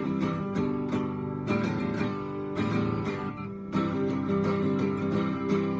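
Acoustic guitar strumming chords as a song's closing instrumental, with a last strummed chord near the end left ringing out and fading.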